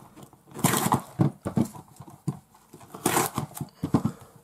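Small cardboard booster boxes being handled on a tabletop as a blade slices them open: a few hollow knocks and short scrapes, the loudest about a second in and again about three seconds in.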